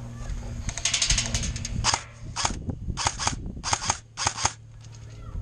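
Airsoft rifle firing: a rapid burst of shots about a second in, then five shorter bursts of one to three shots each, about half a second apart.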